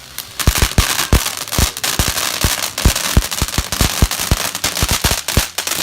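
Firework going off: a fast, irregular run of sharp cracks, several a second, over a steady hiss. It starts suddenly just after the beginning.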